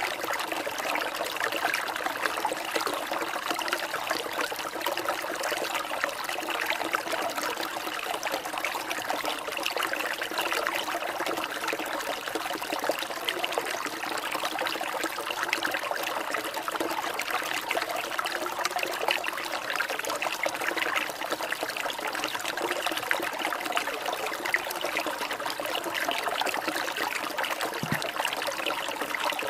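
Water trickling and babbling steadily, like a small stream, as a continuous relaxation sound.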